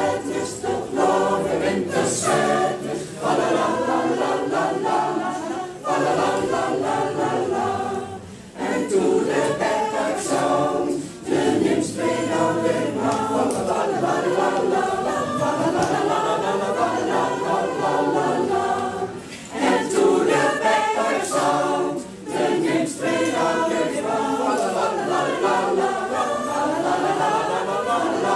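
Mixed choir of men's and women's voices singing in parts, unaccompanied, with short pauses between phrases.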